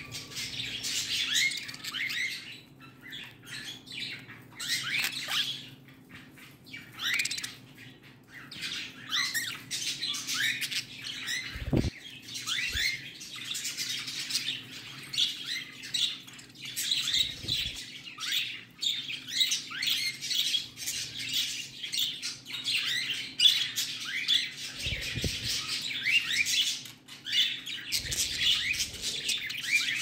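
Budgerigars chattering: a busy stream of short, quick chirps and warbles, with a few thumps scattered through.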